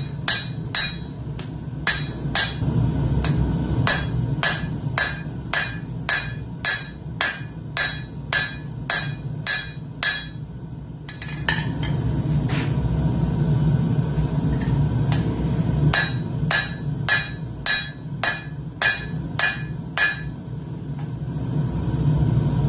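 Hand hammer forging hot steel on an anvil, about two ringing blows a second, in two runs with a pause of a few seconds between them. A propane forge runs with a steady low roar underneath.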